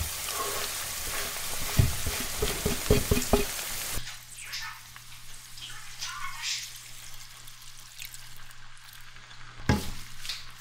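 Food sizzling as it fries in a pan, with a utensil stirring and knocking against the pan. The sizzle cuts off abruptly about four seconds in, leaving scattered quiet kitchen clicks over a low hum, with one louder knock near the end.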